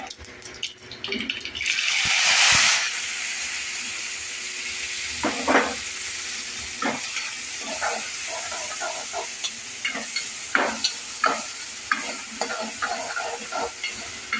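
Chopped tomatoes and green chillies hitting hot tempering oil in a kadhai: a loud burst of sizzling about two seconds in, then a steady frying sizzle. From about five seconds in, a metal ladle scrapes and knocks against the pan as the tomatoes are stirred.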